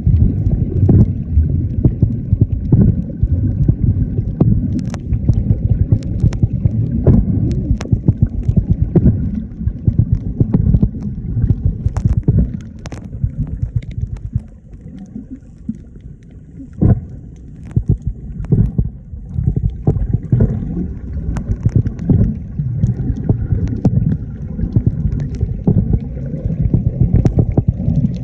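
Churning water heard on the camera's microphone: a heavy, muffled rumble with scattered sharp clicks, easing off for a few seconds about halfway through.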